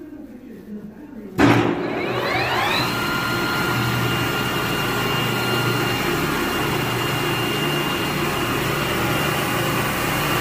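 Famot TUM-35 lathe's spindle drive switched on with a sudden start about a second and a half in. Its whine rises for about a second as the spindle comes up to speed, then it runs steadily.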